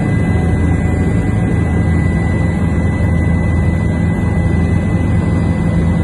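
Helicopter in flight: a loud, steady drone of engine and rotor with a faint steady high whine over it.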